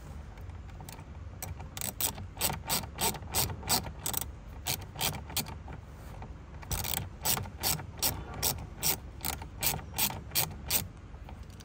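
Hand socket ratchet with a 7mm socket clicking in quick runs as it undoes a trim bolt, with a brief pause near the middle. The bolt is still tight enough that it has to be ratcheted all the way out.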